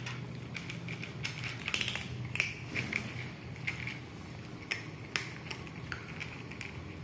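Kittens crunching dry cat kibble: irregular sharp crunches and clicks over a low steady hum.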